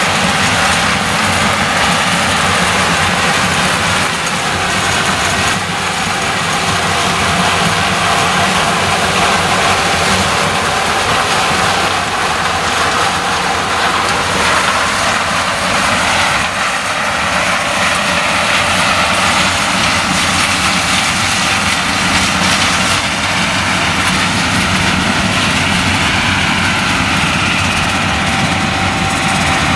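Claas Lexion 760 TT combine harvester working under load, picking and threshing maize through its 9-row Geringhoff corn header: a steady, dense engine and machinery drone with a steady whine over it.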